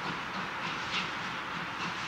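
Baldwin 2-6-2 steam locomotive No. 12 working a train, its exhaust chuffing in a steady beat of about three a second over a continuous hiss.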